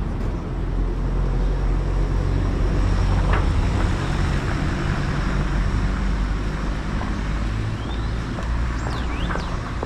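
Street traffic, with a vehicle engine running close by that swells and then eases off. A few short high chirps come near the end.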